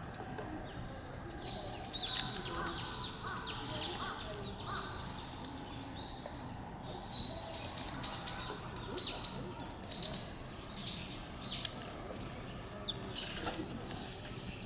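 Small birds chirping: runs of short, high chirps, several a second, getting louder in the second half, with a brief louder burst of sound near the end.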